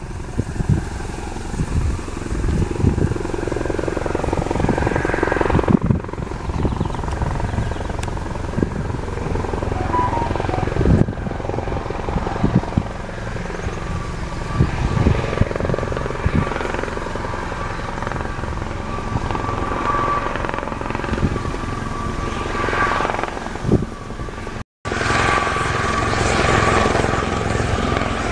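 Sikorsky S-76D twin-turboshaft helicopter in flight overhead, its main rotor and engines running steadily. About halfway through, a steady high whine becomes clear over the rotor sound. The sound cuts out for an instant near the end.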